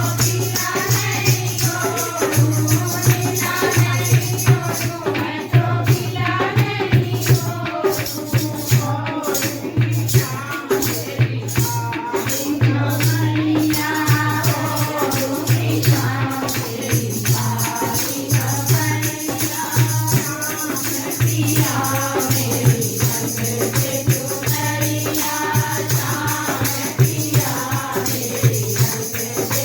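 Hindi devotional bhajan: singing with music over a steady low hum, with shaken rattle-type percussion keeping the beat.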